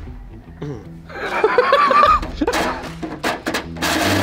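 People laughing over background music with a steady bass line; a power drill starts up right at the end.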